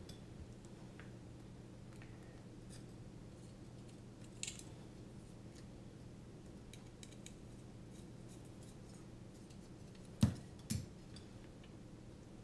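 Light clicks and taps of carbon-fibre drone frame plates, metal standoffs and screws being handled and fitted together, over a steady low hum; two sharper knocks come about ten seconds in.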